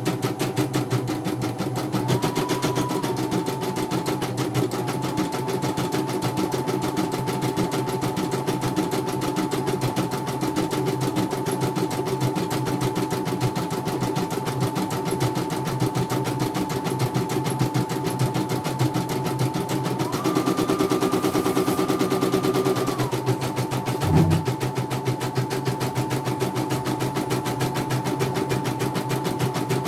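CNY portable computerized embroidery machine stitching a design on a test run after servicing: rapid, steady needle strokes over a motor hum whose pitch steps up briefly twice, with one short knock about 24 seconds in. It runs smoothly, without grinding.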